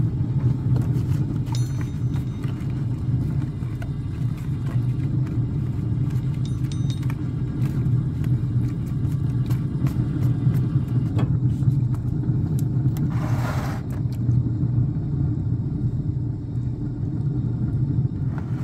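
Steady low rumbling drone of a pellet smoker running with its lid open, with a few light clicks and a short soft hiss about 13 seconds in.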